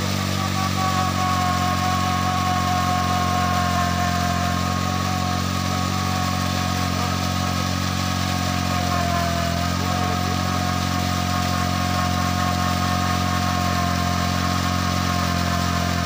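Honda 100 motorcycle's single-cylinder four-stroke engine running steadily under load, driving an improvised irrigation water pump, with a steady whine above the engine note and a brief dip in speed about nine seconds in. Water gushes from the pump's outlet pipe.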